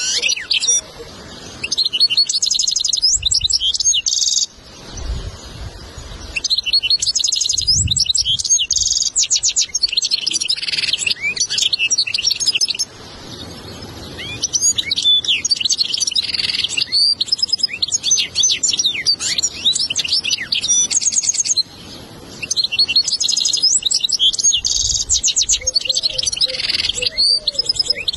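European goldfinch singing a long song of fast twittering trills and buzzy notes, breaking off briefly several times. It is a recorded tutor song, played for a young goldfinch to learn from.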